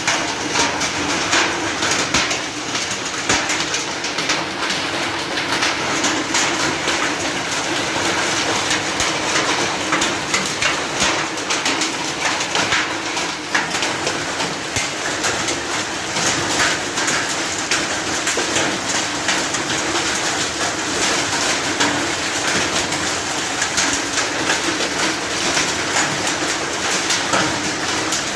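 Hailstorm: hailstones pelting down in a dense, unbroken clatter of small impacts over a steady hiss, keeping an even intensity throughout.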